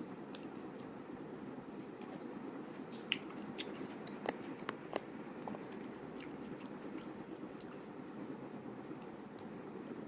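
A person chewing food close to the microphone: steady wet mouth noise with scattered small clicks, a few sharper ones about three to five seconds in.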